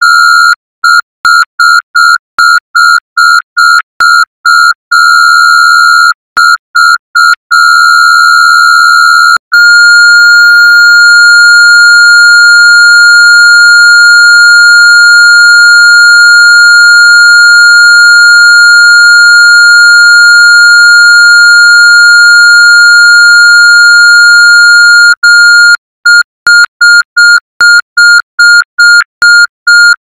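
Fan-made New Zealand emergency alert tone: a loud, single high-pitched electronic tone beeping rapidly, about three times a second, then held unbroken for about fifteen seconds from about nine seconds in, then beeping rapidly again near the end.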